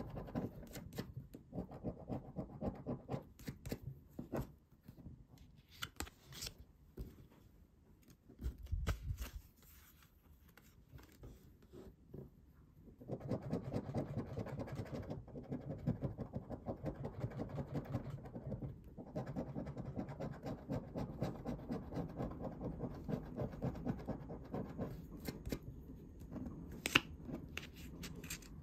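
A coin scratching the coating off a Banco paper scratch card in quick back-and-forth strokes, easing off for a few seconds in the middle, then scratching steadily again.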